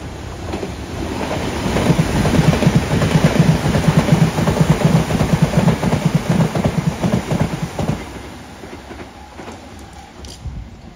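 London Underground S8 stock train passing close by at speed, its wheels clattering rapidly over the rails. It builds as it approaches, stays loud for about six seconds, then drops away about eight seconds in.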